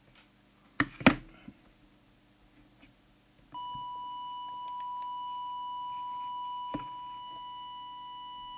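Two knocks about a second in, then, from about three and a half seconds, a steady single-pitched whistle-like test tone from an audio test oscillator. It is used to modulate the CB transmitter for a deviation check. A small click comes near seven seconds, after which the tone is a little quieter.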